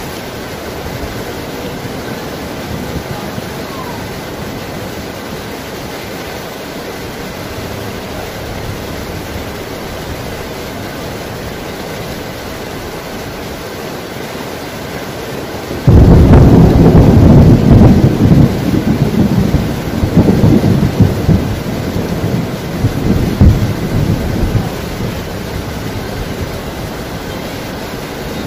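Heavy rain falling in a steady hiss. About sixteen seconds in, thunder breaks suddenly and loudly, then rolls on in surging rumbles for about eight seconds before dying back under the rain.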